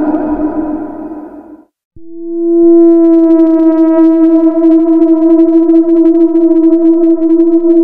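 An effect-laden electronic music sound fades away. After a short silence, a single steady synthesizer tone swells in about two seconds in and holds at one pitch.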